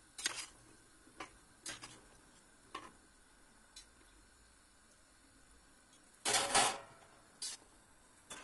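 Metal spoon stirring whole green figs in hot water in a stainless steel pot, knocking against the pot's side: a few scattered clinks, with a longer clatter about six seconds in and a couple more knocks near the end.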